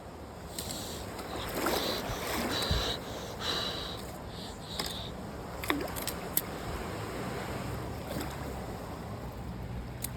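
Water sloshing and splashing around the legs of someone wading in a creek, over the steady rush of the flowing stream, with a few sharp clicks about six seconds in.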